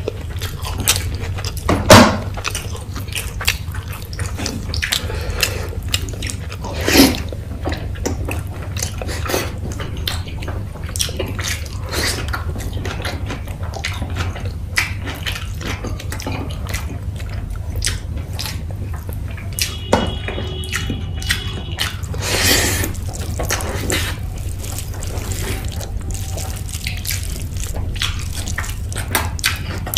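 Close-miked mukbang eating sounds: wet chewing, lip smacking and the squelch of rice and gravy mixed by hand, heard as irregular wet clicks over a steady low hum.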